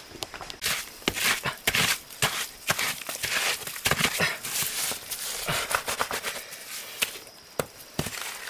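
Bare hands scooping and packing wet mud and stones, a string of irregular short scrapes and squelches.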